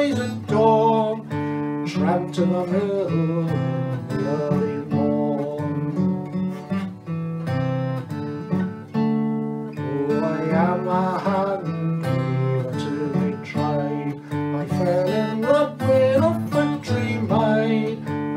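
Steel-string acoustic guitar in DADEAB open tuning, picked steadily as the accompaniment to a traditional folk song, with a man singing over parts of it.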